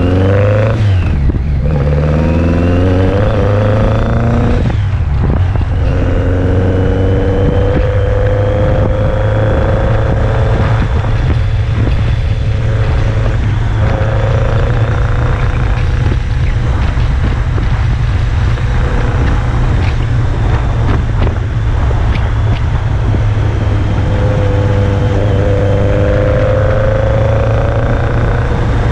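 BMW K100 motorcycle engine under way: it pulls up through the revs with two upshifts in the first few seconds, then holds a steady cruise, and the revs climb again near the end.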